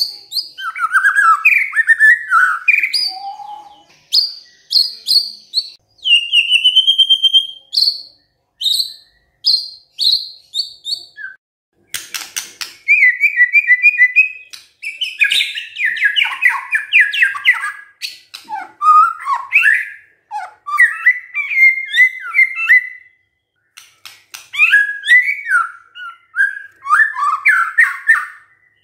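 White-rumped shama (murai batu) in full song: a varied run of loud whistled phrases, fast trills and chattering notes, broken by short pauses.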